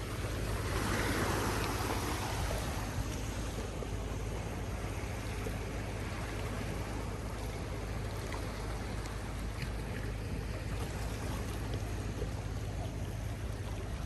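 Sea waves washing onto a beach, one wave surging about a second in and then a steady wash of surf. Under it a low rumble of wind on the microphone.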